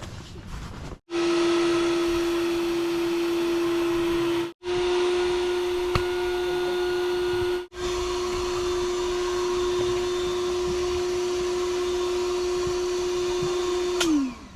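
A small electric motor running at a steady, high-pitched whine, in three stretches broken by short gaps, then winding down in pitch near the end as it is switched off.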